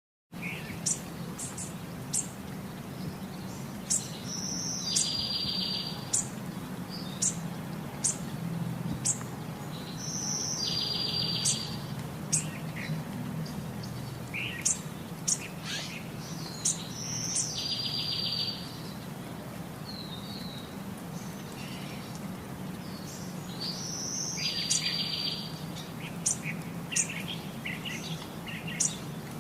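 Songbirds chirping: short high chirps throughout, and a song phrase of a high note followed by a buzzy trill repeated about every six seconds. A steady low hum runs underneath.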